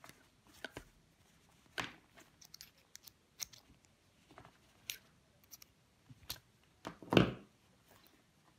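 Small green-handled pliers snipping and working at electrical wire: a series of irregular sharp clicks and snips, the loudest and longest a little after seven seconds in.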